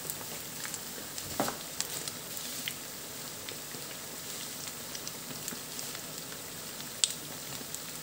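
Batter-coated onion rings frying gently in a pan on low heat: a steady soft sizzle with scattered pops and crackles, the sharpest about a second and a half in and another near the end.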